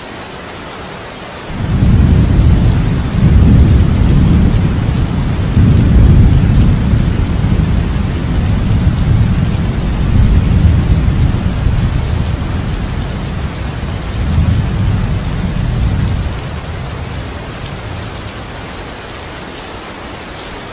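Heavy rain falling steadily, with a long roll of thunder that breaks in suddenly about a second and a half in, rumbles deep in several swells and dies away near the end, leaving the rain alone.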